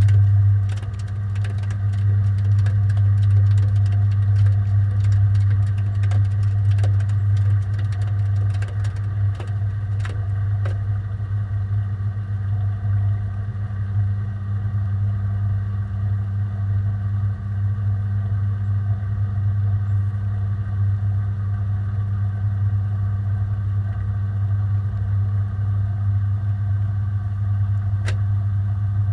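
Washing machine spinning its drum at speed, heard from inside the drum: a loud, steady, low hum, with scattered ticks and clicks in the first ten seconds that fade away.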